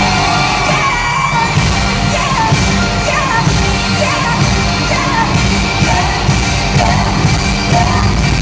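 Live pop band playing with a woman singing over it, picked up by a phone's microphone with heavy bass.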